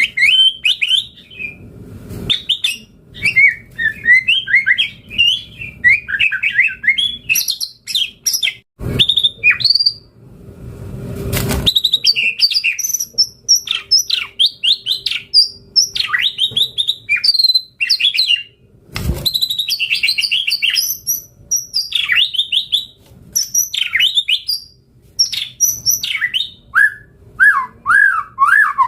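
White-rumped shama (murai batu) singing a long, unbroken, varied song of quick whistled notes, trills and chattering phrases, the full mimicry-laden song prized in Indonesian songbird keeping. A few sharp clicks cut in, about nine, eleven and nineteen seconds in.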